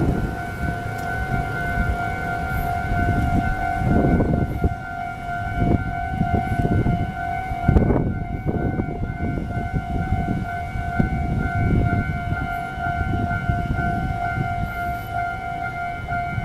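Railway level-crossing warning bell sounding a steady two-tone alarm in rapid, even pulses, over irregular low rumbling noise.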